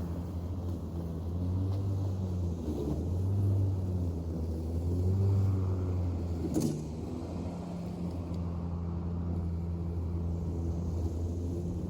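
An engine running steadily, swelling in level three times and then settling, with one sharp click about six and a half seconds in.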